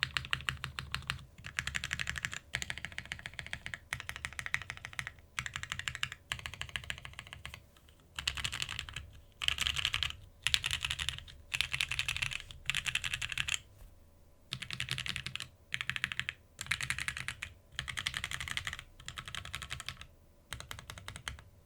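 TGR x Monokei Jane V2 ME mechanical keyboard with lubed OP Black switches on a polypropylene plate, O-ring mounted, with GMK keycaps, being typed on quickly. The keystrokes come in rapid runs about a second long with short pauses between them.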